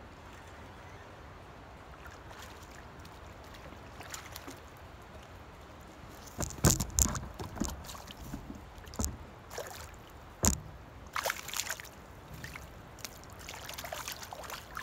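A hooked fish thrashing at the water's surface near the bank, in a run of loud, irregular splashes that begins about six and a half seconds in and goes on to the end.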